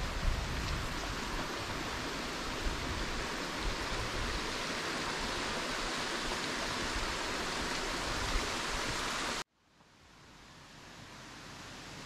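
Steady rushing of a mountain creek flowing along the trail. About three-quarters of the way through it cuts off abruptly, then fades back in more quietly.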